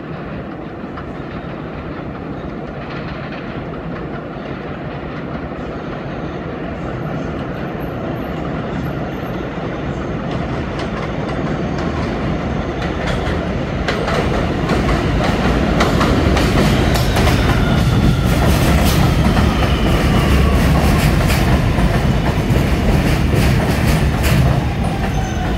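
New York City Subway R211T train arriving at a station, growing steadily louder as it comes in, its wheels clacking over the rail joints. From about two-thirds of the way through, a whine falls in pitch as the train slows to stop.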